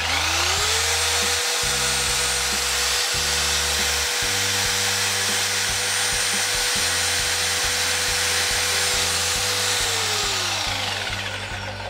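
Parkside PSBM 750 B3 750 W corded hammer drill run at its highest speed with an empty chuck: the motor whine rises quickly, holds steady for about ten seconds, then winds down near the end. Background music plays underneath.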